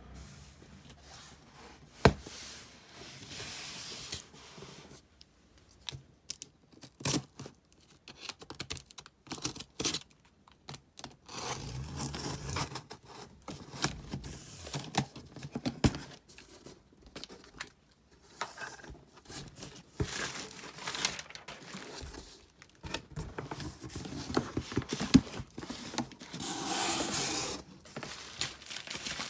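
Album packaging being torn open and crinkled by hand during an unboxing, with scattered sharp clicks and knocks as it is handled.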